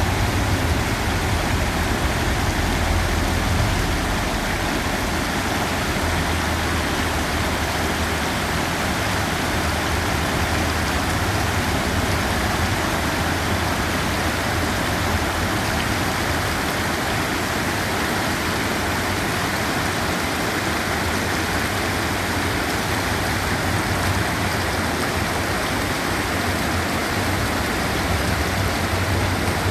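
A river running: the steady rushing of flowing water.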